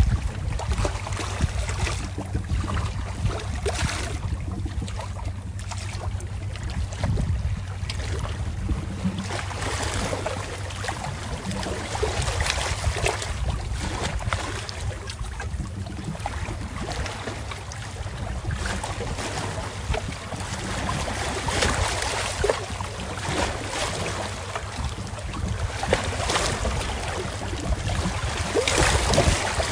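Wind buffeting the microphone in uneven gusts over a low steady rumble, with waterside ambience beneath.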